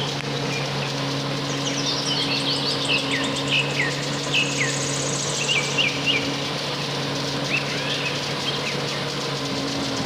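Small birds chirping in quick downward-sliding notes, with a brief high trill about four to five seconds in, over a steady low engine drone.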